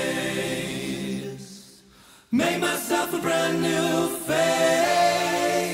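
Layered wordless vocal harmonies holding long chords. The chord fades out about two seconds in, and a new one comes in sharply a moment later and is held.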